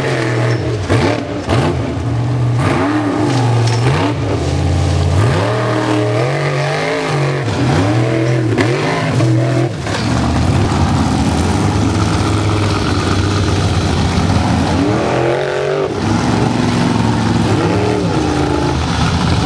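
Formula off-road competition car's engine revving hard, the pitch shooting up and dropping again many times in quick succession, then held at high revs for several seconds before dropping briefly and rising and falling again near the end.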